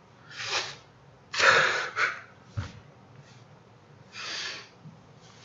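A man weeping: a run of about six sharp, noisy breaths and sniffs, the loudest about a second and a half in, with no words.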